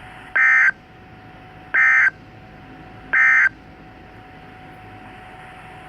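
Emergency Alert System end-of-message signal: three short bursts of SAME digital data tones, each about a third of a second, about a second and a half apart, marking the end of the alert message.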